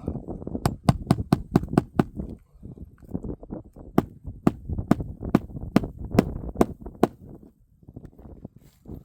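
Hammer driving roofing nails into asphalt shingles. A quick run of about seven strikes comes in the first two seconds, then a steadier run of about eight strikes, roughly two a second, between about four and seven seconds in.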